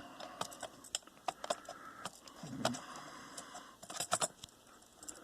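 Light metallic clicks, taps and rattles of a laptop's CPU heat sink being handled and fitted back over the processor against the chassis, with a quick run of clicks near the end.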